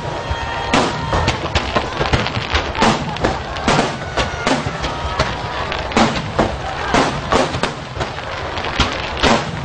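Aerial firework shells bursting in rapid, overlapping succession: sharp booms about two or three a second over a continuous rumble of further explosions.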